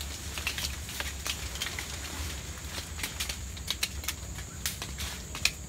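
Irregular sharp snaps and crackles of twigs and leaves as someone climbs among the branches of a mangosteen tree, the loudest snap near the end. A faint steady high tone runs underneath.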